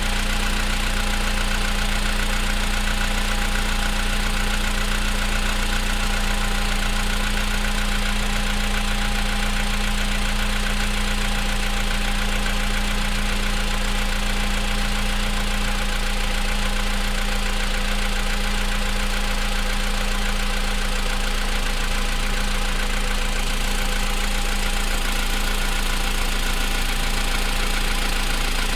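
Car engine idling steadily while cold, with a knocking noise in its running; the knocks are heard only when the engine is cold.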